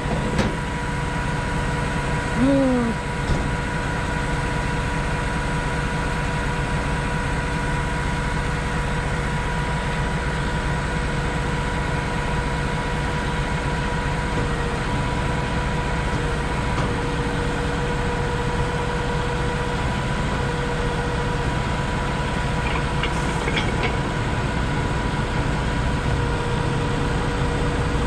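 Heavy-duty tow truck's engine idling steadily, with a constant hum. A brief rising-and-falling squeak comes a couple of seconds in, and a few light clicks near the end.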